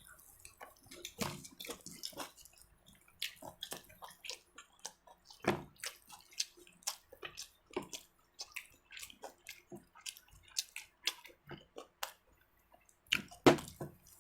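Wet eating sounds close to the microphone: chewing and lip smacks with irregular small clicks, a louder couple of smacks near the end.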